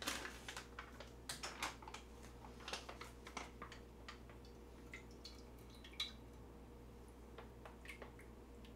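Faint crinkling and small clicks of a plastic retort pouch of instant mapo tofu being handled and squeezed, its sauce emptying onto a plate of rice, busiest in the first few seconds. A faint steady hum runs underneath.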